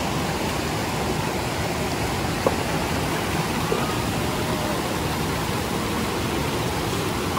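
Rushing water of a rocky mountain stream tumbling over boulders and small cascades, a steady, even rush. A single short knock sounds about two and a half seconds in.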